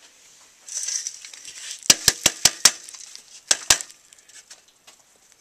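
Vermicompost being shaken through a round metal mesh sieve: a brief rustling hiss of compost on the mesh about a second in, then a quick run of five sharp metallic clinks and two more over a second later as the sieve knocks about.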